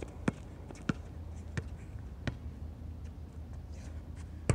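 A basketball being dribbled on a hard court: four bounces about two-thirds of a second apart, then a louder bounce near the end.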